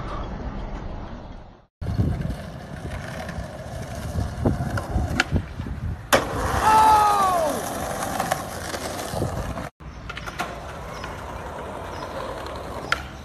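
Skateboard wheels rolling on concrete, with sharp clacks from the board's pops and landings. The loudest moment is a hard landing about six seconds in, followed by a long wavering shout.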